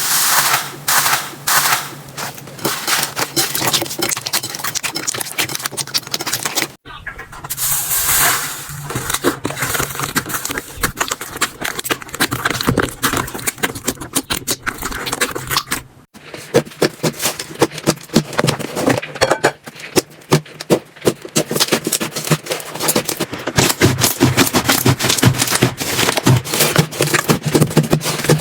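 Slime being squished and stretched, with dense rapid crackling and popping of trapped air. The sound changes abruptly twice, about 7 and 16 seconds in.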